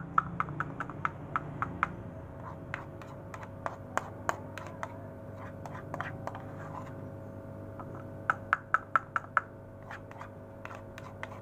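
Metal spoon clicking and tapping against a plastic cup and a plastic bowl while it scoops dark catfish feed pellets and shakes them out into the bowl. There is a quick run of taps at the start and another run of about six taps a little past the middle.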